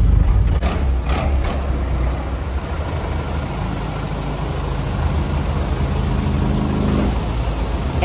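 A farm tipper truck's engine running, loudest in the first couple of seconds and then settling lower, while a load of freshly harvested wheat grain pours out of the tipped bed onto a pile with a steady hiss.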